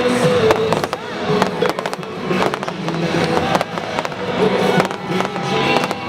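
Fireworks going off in rapid succession, a steady patter of sharp bangs and crackles, with music playing underneath.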